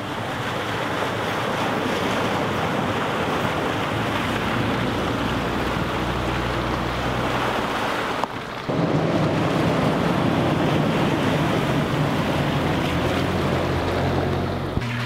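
Off-road vehicles driving through a muddy water crossing, their tyres splashing through the water over the steady running of the engines. The sound cuts sharply about eight seconds in, where a second vehicle is heard splashing through.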